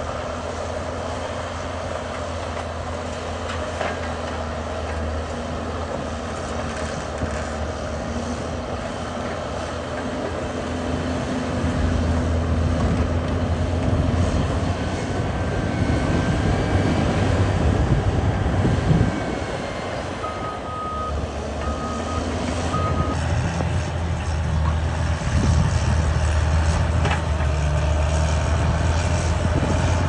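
Caterpillar crawler bulldozer's diesel engine running, pulling harder from about a third of the way in as the blade pushes dirt, easing off a little past the middle. Then its reverse alarm beeps about four times as it backs up, and the engine works hard again.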